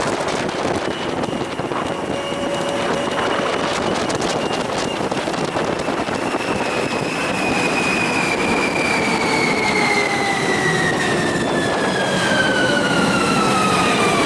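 Electric train running over a steady rumble, its motor whine sliding slowly down in pitch from about halfway through as the train slows.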